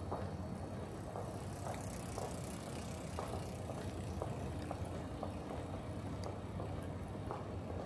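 Steady low rumble of city street traffic, with footsteps at walking pace, about two steps a second.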